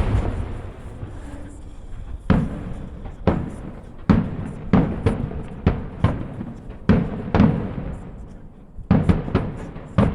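Aerial fireworks shells bursting in a display: a dozen or so sharp booms at irregular intervals, some in quick clusters, each trailing off in a rumble.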